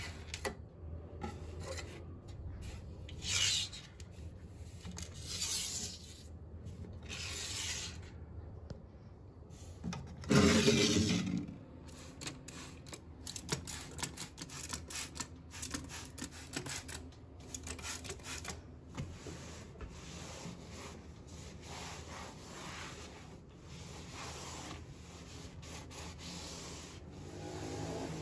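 A cloth towel wiping a shelf surface in many quick rubbing strokes, after a few short hissing sprays from a trigger spray bottle in the first several seconds. A single loud rustle about ten seconds in is the loudest sound.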